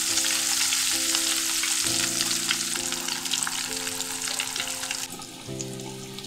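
Crumb-coated eggplant deep-frying in hot oil in a nonstick pan: a steady sizzle full of small crackles, which drops away sharply about five seconds in. Soft background music chords play underneath.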